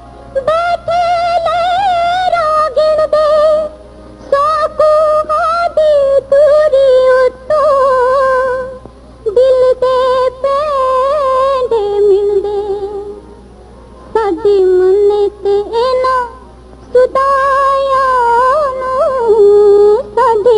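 Music from a 1964 Punjabi film song: an ornamented high melody with vibrato, in phrases of a few seconds broken by short pauses.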